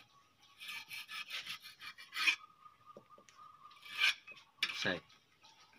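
Soft rubbing and scratchy rasping from hands fiddling with a small black plastic strap buckle, in irregular spells that are loudest about two seconds in and again about four seconds in.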